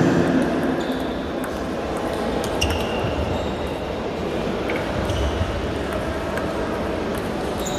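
Sports hall ambience from many table tennis games at once: scattered clicks and short pings of balls striking tables and bats, over a steady background hubbub.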